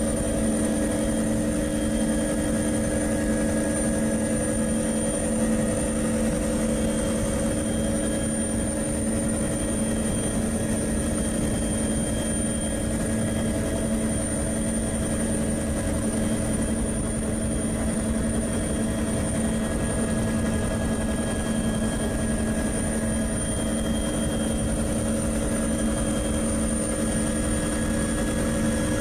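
Steady drone of an aircraft's engine heard from on board, unchanging, with several constant tones and a thin high whine over a rushing noise.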